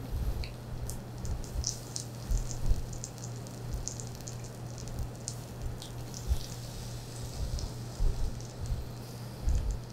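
Pork belly, whole garlic and kimchi sizzling on a hot griddle pan, the fat crackling and spitting in scattered little pops over a steady low hum.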